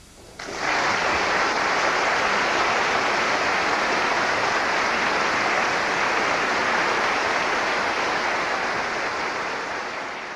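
Audience applauding. It starts suddenly about half a second in, holds steady, and begins to taper near the end.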